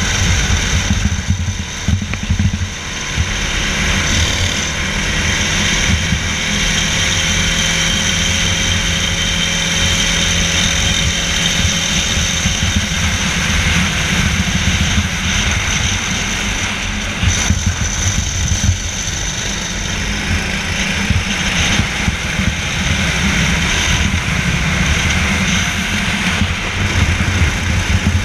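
Racing kart's engine running at speed, its pitch drifting slightly up and down through the lap, over a heavy, fluctuating low rumble.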